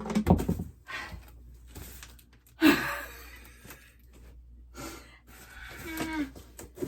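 Stapled cardboard packaging being handled and wrestled, with a knock right at the start, and a loud exasperated sigh about two and a half seconds in.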